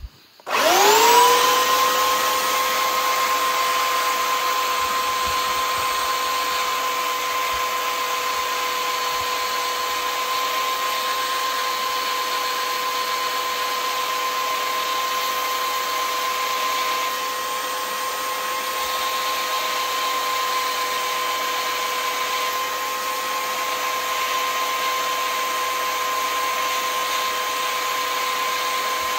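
Belt sander switching on about half a second in, spinning up and then running steadily with an even high whine and a grinding hiss as a metal arrow field point is tapered down against the belt.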